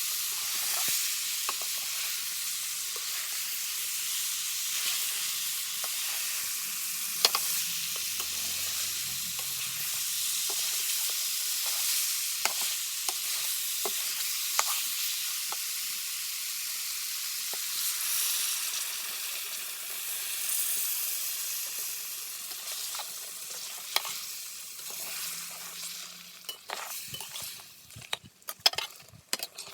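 Pork curry sizzling in a hot pan while it is stirred, the spoon clicking and scraping against the pan. Near the end the sizzle fades and only separate sharp clacks of the spoon remain.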